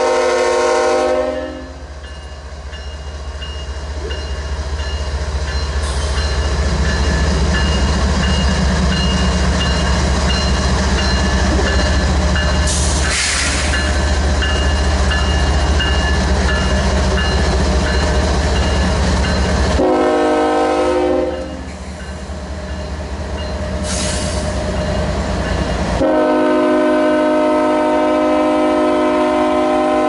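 A freight train's multi-chime horn blowing: a long blast that ends about a second in, a short blast about two-thirds of the way through, and another long blast starting near the end. Under it, the steady heavy rumble of several GE diesel-electric locomotives passing close by.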